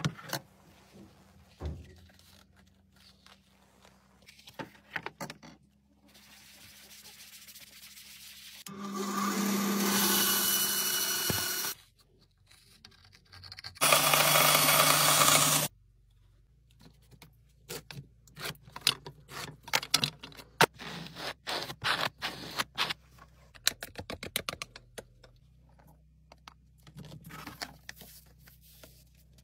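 Woodworking tools: a power tool runs for about three seconds, then a bandsaw cuts through a small wooden block in a burst of about two seconds. After that comes a long string of sharp taps and clicks from hand tools on the workbench.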